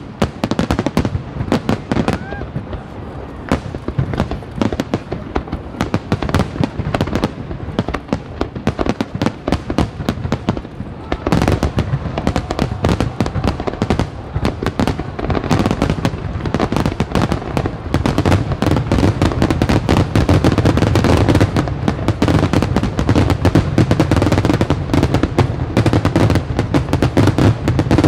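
Aerial fireworks going off in a dense, continuous string of bangs and crackles, with a brief rising whistle about two seconds in. About eleven seconds in, the barrage grows louder and heavier and stays that way.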